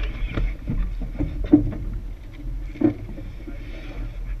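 Knocks and thuds from a small sailboat and its gear as it is handled alongside a wooden dock, the two clearest about a second and a half in and near three seconds, over a steady low rumble.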